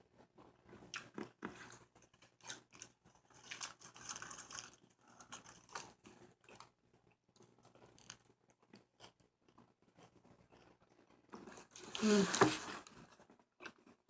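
Faint chewing and biting of a burger: scattered soft clicks, smacks and crunches of food in the mouth. Near the end comes a short, louder voiced hum, like an appreciative "mm".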